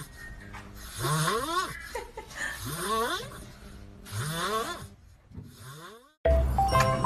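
Kitten eating dry kibble, making a short rising vocal noise with a hiss of chewing about every second and a half. Music with a beat cuts in near the end.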